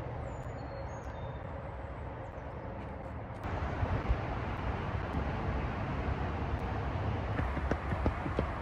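Wind buffeting the microphone and tyre noise from a touring bicycle rolling along a paved trail. The noise grows louder and fuller about three and a half seconds in, and a few sharp clicks come near the end.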